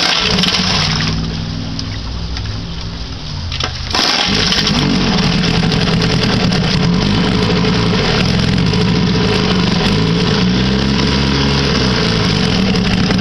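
1959 Kiekhaefer Mercury Mark 6A two-cylinder two-stroke outboard running in a test barrel on three-year-old fuel. About four seconds in it suddenly gets louder and then runs on steadily.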